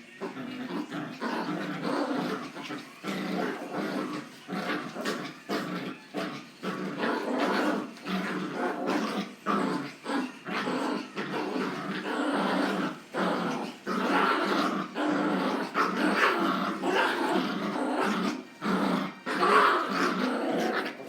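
Two dogs fighting: continuous snarling and growling in rapid, irregular bursts, with louder outbursts about two thirds of the way through and near the end.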